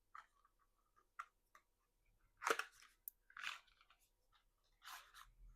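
Small cosmetic packaging being handled: faint scattered rustles and light taps, the loudest about two and a half seconds in and again near the end.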